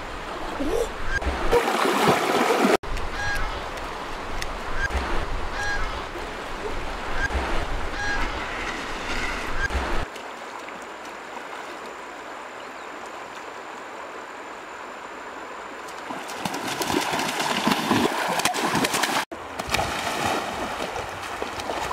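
Domestic geese honking over running river water for roughly the first ten seconds, then the steady rush of the shallow river alone, and heavy splashing in the last few seconds as a person and a goose swim through the water.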